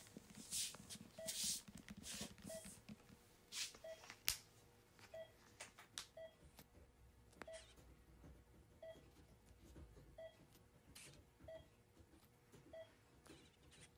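Faint electronic beep repeating steadily about once every 1.3 seconds over a faint steady hum. A few short clicks and rustles come in the first four seconds.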